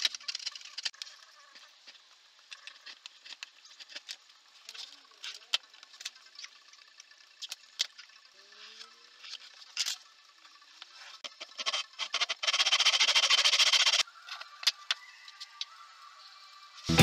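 A steel chisel scraping across a fir block, then scattered knocks, taps and clicks of tools and wood being handled on a workbench. About twelve seconds in, a steady rasping noise lasts about a second and a half and cuts off sharply with a click.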